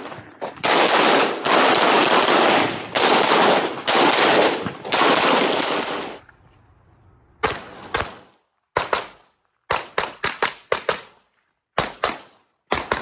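Handgun shots. For the first six seconds they come so fast and loud that they run together into a near-continuous racket. After a short lull they ring out singly and in quick pairs (double taps), each followed by a short echo.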